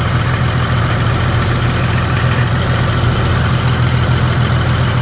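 Jeep Grand Cherokee WJ's 4.0-litre straight-six idling steadily with a ticking noise, which the owner suspects is a cracked flex plate; a shop thinks the torque converter more likely.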